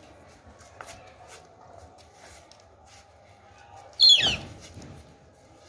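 A German Shepherd gives one short, high yelp about four seconds in, sliding steeply down in pitch, over faint scuffling and small clicks as it is held for grooming.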